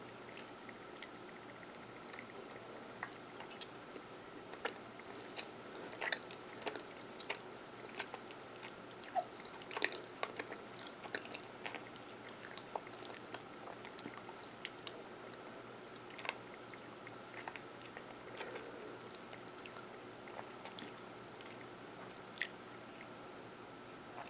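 Close-miked mouth chewing a Hershey's Caramel Kiss: quiet, irregular mouth clicks and smacks, a few louder ones scattered through, over a faint steady hum.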